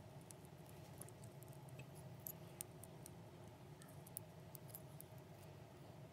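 Faint, scattered light clicks of clear plastic crystal puzzle pieces being handled and pressed together. A steady low hum runs underneath.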